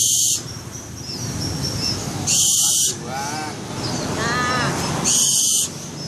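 Young barn owl hissing: three harsh, breathy hisses about half a second long, about two and a half seconds apart, the begging and defensive call of a downy owlet.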